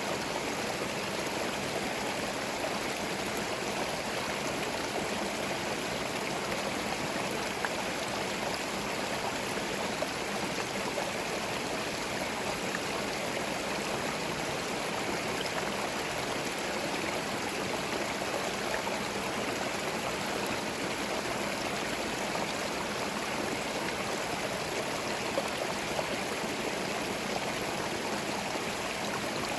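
Small forest stream running over stones: a steady, even rush and burble of flowing water.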